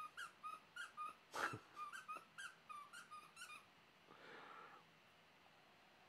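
A dog's squeaky toy squeaked over and over in quick succession, about three or four squeaks a second, then stopping about three and a half seconds in. One louder, short noisy puff comes about a second and a half in.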